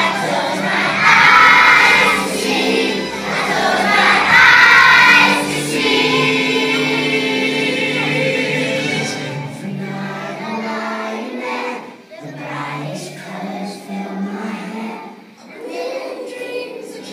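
Music: a choir singing a song with accompaniment, fuller in the first half and quieter in the second.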